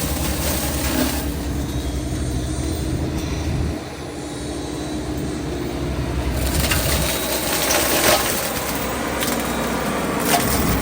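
FEMAC T9 flail mulcher on a Yanmar Vio55 excavator running over the excavator's engine drone, shredding brush and vines in rough bursts at the start, again from about six to eight seconds in, and near the end.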